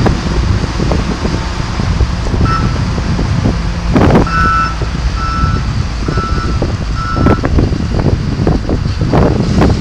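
John Deere 544K wheel loader's diesel engine running, with its reversing alarm beeping at a bit under one beep a second through the middle of the stretch. Gusts of wind on the microphone come and go over it.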